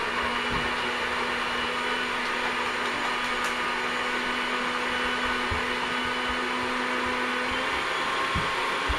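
Countertop blender motor running steadily at speed, blending ice cream, milk and chocolate syrup into a frappé.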